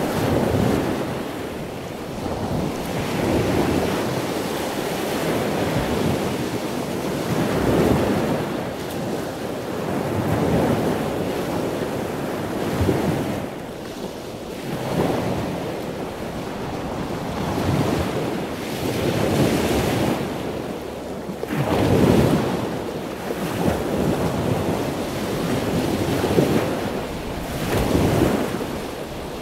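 Continuous rushing noise, like surf or wind, swelling and easing every two to three seconds, with no speech.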